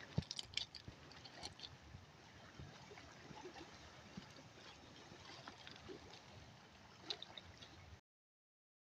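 Faint lapping and trickling of sea water at the shore, with a few soft clicks and knocks; the sound cuts to silence near the end.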